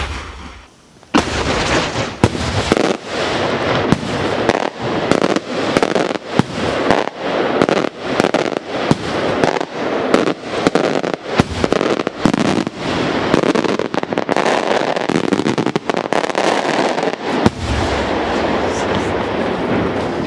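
Maltese daylight fireworks shell going off in a long, dense string of loud bangs and crackling. It starts about a second in and runs many reports a second for some sixteen seconds, then settles into a steadier echoing rumble near the end.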